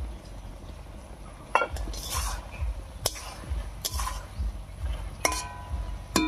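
Flat metal spatula scraping and clinking against a metal wok while stirring starfruit pieces simmering in jaggery syrup, with a ringing metallic clang near the end.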